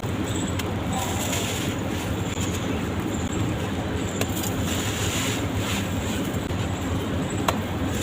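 Dry sand-cement blocks being crumbled and crushed: continuous gritty crunching with scattered sharp clicks, one standing out near the end.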